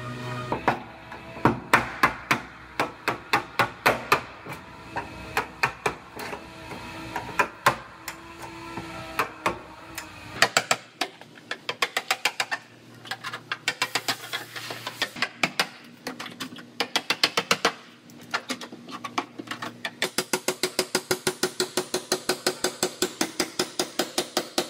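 Repeated hammer strikes on car body sheet metal, irregular at first, then a fast even run of blows near the end, over background music.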